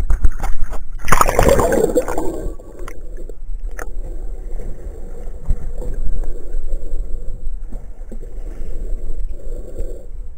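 A splash as the camera plunges below the surface about a second in, then the muffled, gurgling hush of water heard underwater, with a few faint knocks.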